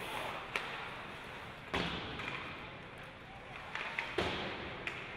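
Ice hockey play: several sharp knocks of puck and sticks against the ice and boards, the loudest about two seconds in and again about four seconds in, over steady arena crowd chatter.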